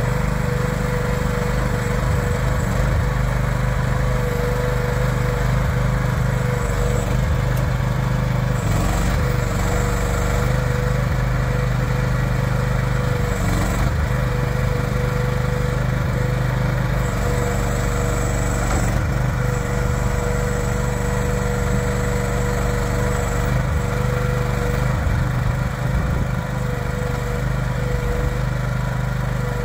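Miva VA13C mini crawler excavator running steadily while its boom, arm and bucket are worked, the engine note joined by a constant whine.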